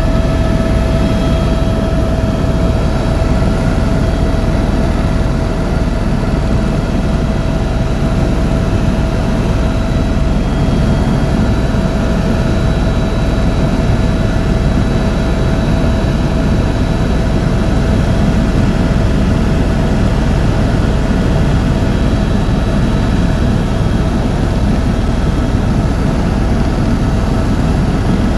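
Tour helicopter in steady flight: loud, even rotor and engine noise with a steady high whine on top.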